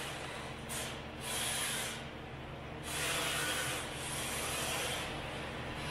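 MST rear-wheel-drive RC drift car's tyres sliding on a concrete floor: a scrubbing hiss that swells and drops in several surges with short gaps, over a low steady hum.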